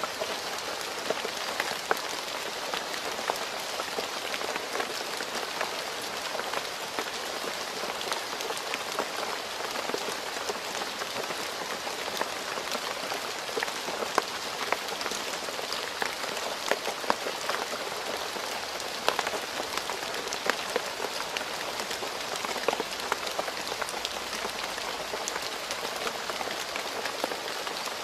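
Steady rain falling on a road surface, an even hiss with many individual drops ticking sharply through it.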